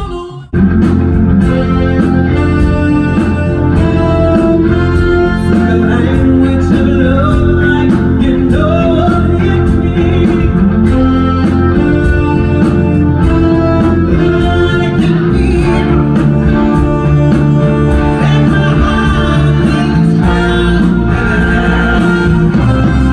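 Rock-style band music with a singer and guitar over a steady beat. One piece cuts off at the very start and another begins abruptly about half a second in.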